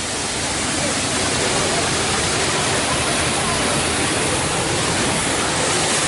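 Waterfall: the steady, dense rush of falling water.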